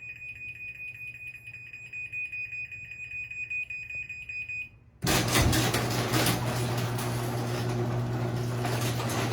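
myQ smart garage hub's warning beeper sounding a fast, high-pitched pulsing beep, about four or five beeps a second, which warns that the garage door is about to move. After about five seconds it stops, and a garage door opener starts running with a steady motor hum and a rattling drive.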